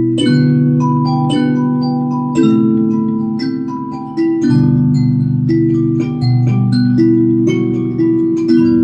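Harmony array mbira played in overlapping runs of notes: its metal tines are plucked with a sharp click at each attack, and each note rings on with an almost pure tone. Low and high notes sound together.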